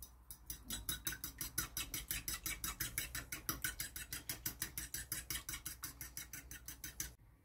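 Fork beating eggs in a bowl: the tines strike and scrape the bowl in a quick, even rhythm of about five strokes a second, stopping shortly before the end.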